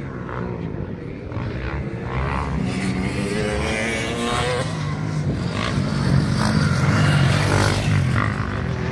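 Motocross bikes racing on a dirt track, their engines revving with the pitch rising and falling, getting louder about six seconds in as the riders come closer.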